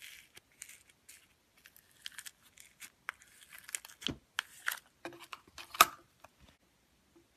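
Hands handling crafting materials: crinkling and tearing of plastic or paper, with scattered sharp clicks and taps, the loudest about two thirds of the way in.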